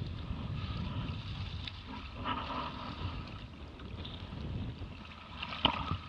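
Wind buffeting the camera microphone beside a capsized Hobie 16 catamaran, a steady low rumble with some water splashing against the hull. One sharp knock comes about five and a half seconds in.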